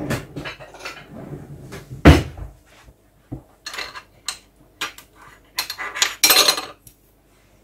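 Kitchen clatter of a steel saucepan and utensils being handled on a stovetop: a string of knocks and clicks, the loudest a sharp knock about two seconds in, with a longer rattling burst a little after six seconds.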